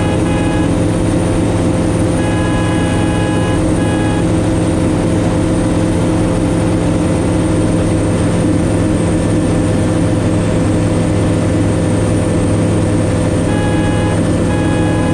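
Kitfox Model 7 Supersport light aircraft's engine and propeller running at a steady drone. A short pattern of electronic beeps sounds twice, about two seconds in and again near the end.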